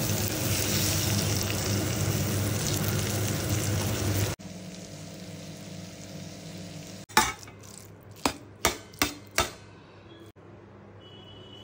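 Fish eggs frying in oil in a pan, a loud steady sizzle that cuts off abruptly about four seconds in. After a quieter stretch come five sharp knocks of a utensil against the pan, the first the loudest.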